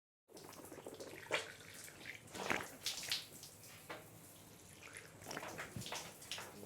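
Faint water from a tap, splashing and dripping in irregular spurts.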